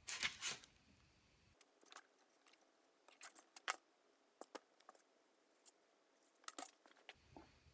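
Small metal clicks and light scrapes from a collar being worked off an Atlas 73 drill press spindle and the steel spindle and quill being handled. A sharp cluster of clicks comes at the start, then scattered faint ticks.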